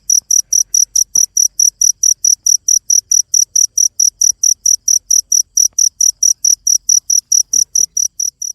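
Cricket chirping: short, high-pitched chirps repeated evenly, about five a second.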